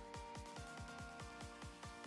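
Faint electronic background music with a steady beat of low thuds, about four a second, over held chords that change about half a second in.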